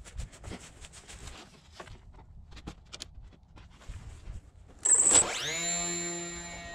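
Light clicking and short scraping of hand tools at work. About five seconds in, a sudden loud whoosh settles into a steady droning tone with many overtones.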